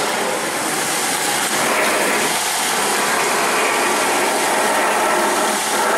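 Ford Fusion electric power steering rack making a grinding, groaning mechanical noise as the steering is turned from side to side. The mechanic puts it down to worn bearings and bushings inside the steering rack, which started after the car drove through a puddle.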